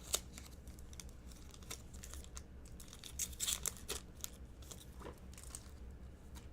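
A football card pack's wrapper being torn open and crinkled by hand, in a run of irregular short crackles and rustles that is busiest about three to four seconds in.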